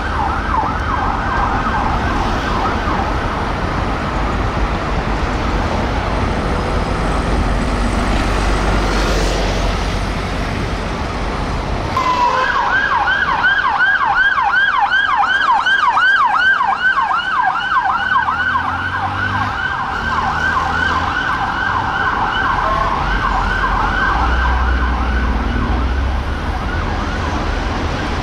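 Metropolitan Police armed response car sirens on a fast yelp, sweeping up and down several times a second over traffic noise. The siren is faint under the traffic at first, then about twelve seconds in a much louder yelp starts abruptly and carries on.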